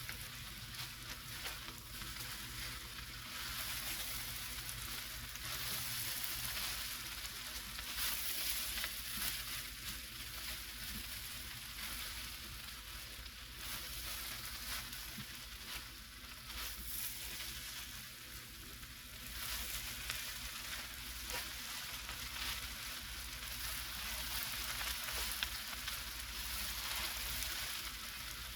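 Ham fried rice sizzling in a large pot while being stirred and mixed, the sizzle swelling and easing as it is turned, with faint ticks of the utensil.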